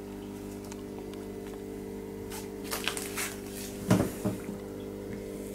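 A steady electrical hum, with a few light clicks and a louder knock about four seconds in.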